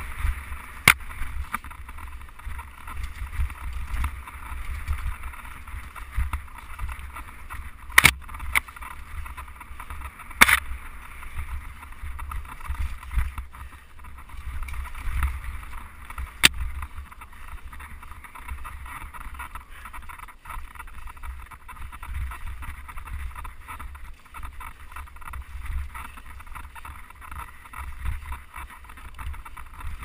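Wind buffeting the camera microphone on a moving mountain bike, a steady low rumble. Over it come a few sharp clacks of the bike jolting over bumps, the loudest about eight and ten seconds in.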